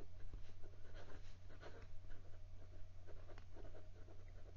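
Steel architect italic fountain pen nib writing on Clairefontaine 90 gsm paper: faint, quick scratches of the nib with each stroke of the letters. The scratch is the nib's bit of feedback on an otherwise smooth nib. A steady low hum runs underneath.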